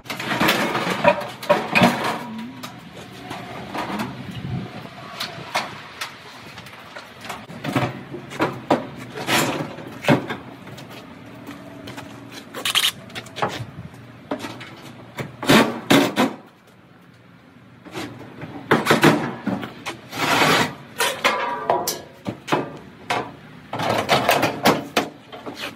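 Sheet-metal panels of an older GE dryer cabinet being handled and fitted back together during reassembly: irregular clanks, knocks and rattles, in clusters, with a short lull about two-thirds of the way through.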